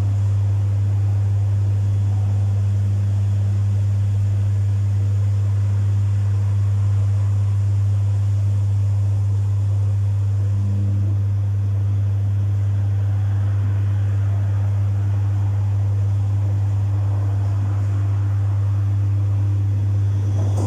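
Domus 8 kg washing machine running a full load with a loud, steady low hum.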